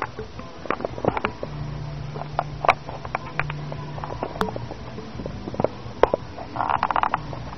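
Handling noise from the camera's own microphone as it is moved around and brought up close to a face: scattered clicks and knocks over a low hum, with a short burst of rapid rattling near the end.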